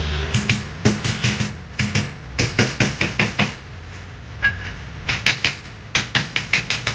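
Quick bursts of sharp taps on wood, about four or five a second, in three runs with short pauses between, as teak parts are knocked into place during fitting.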